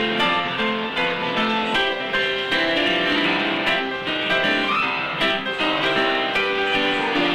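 Upright piano played live: a continuous stream of notes and chords.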